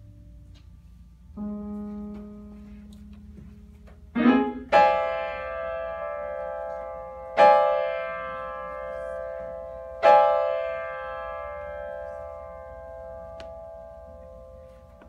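Grand piano played solo: a soft held note, then a quick rising run about four seconds in, followed by three loud chords about three seconds apart, each struck and left to ring out slowly.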